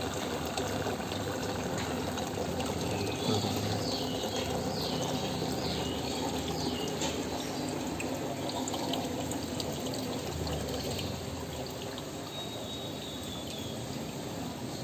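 Steady rushing and trickling of water from a saltwater aquarium's sump and Jebo 180 protein skimmer running, easing a little about eleven seconds in.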